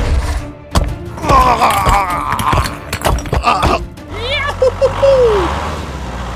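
Background music with several sharp knocks and thuds in the first half, and a short pitch glide that rises and then falls about halfway through.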